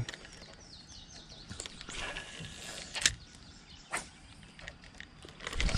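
A bird chirping, a quick run of short falling notes about half a second in, over a quiet outdoor background. Two sharp clicks about a second apart come later.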